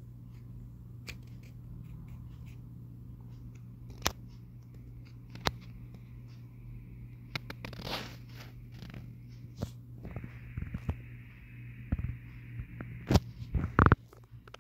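Scattered small clicks and taps from hands handling a smartphone, with a brief rustle about eight seconds in and a cluster of sharper knocks near the end, over a steady low hum.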